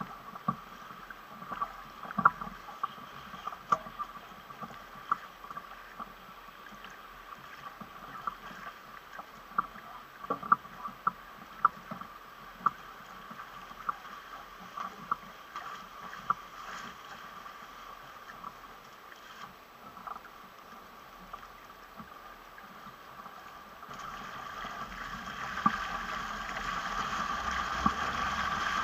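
Water slapping and splashing against the hull of a sailing catamaran under way, in frequent short irregular ticks. From about 24 seconds in it builds into a louder, steadier rush of water along the hull as the boat picks up speed.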